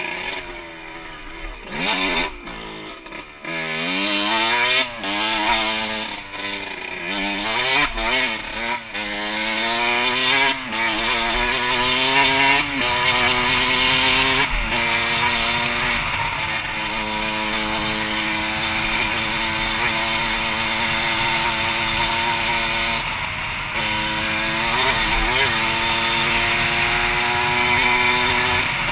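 2006 Suzuki RM125's 125cc two-stroke single-cylinder engine under riding load: revs rising and falling over and over with a few knocks in the first ten seconds, then held high with quick dips as it shifts up, and running steadily at speed for most of the rest.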